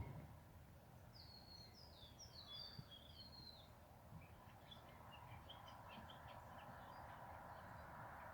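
Faint bird chirping: a quick run of short, falling chirps starting about a second in, then fainter scattered chirps, over near silence.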